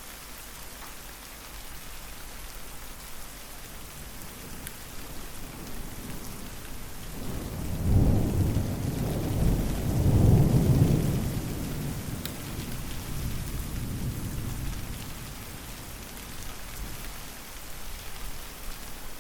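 Steady rain falling, with a long roll of thunder partway through that swells twice, loudest in two low rumbles, then fades back into the rain.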